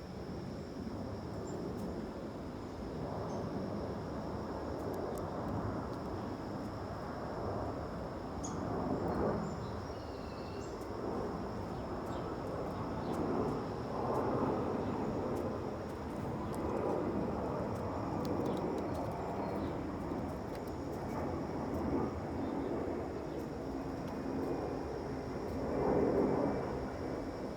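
Outdoor backyard ambience: a rushing background noise that swells and fades every few seconds, over a steady high thin hum, with a few faint bird chirps.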